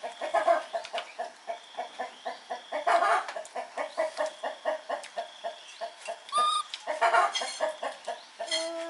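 Chickens clucking, a few short clucks a second, with a brief squawk about six and a half seconds in and a longer drawn-out call near the end.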